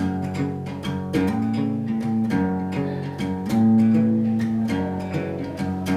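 Steel-string acoustic guitar playing chords, strummed strokes mixed with picked notes, in a steady rhythm.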